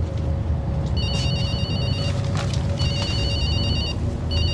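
A mobile phone's electronic ringtone trilling in three repeated bursts of about a second each, starting about a second in. Under it is the steady low rumble of a city bus running.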